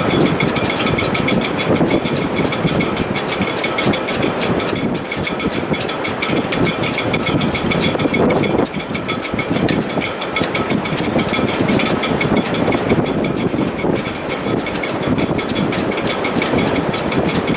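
A sailboat's shrouds and rigging in strong wind: steady rushing wind noise with a faint, steady high whine from the stays over a fast, even flutter.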